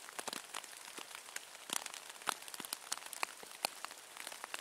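Raindrops tapping irregularly on a tarp stretched overhead, heard from underneath it, many small sharp hits over a faint steady hiss.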